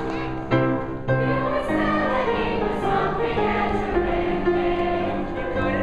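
Musical-theatre song: a chorus of children's voices singing over instrumental accompaniment, with held chords throughout.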